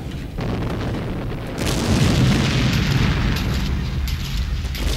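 Rumbling booms of explosions, a war sound effect, swelling louder and fuller about a second and a half in.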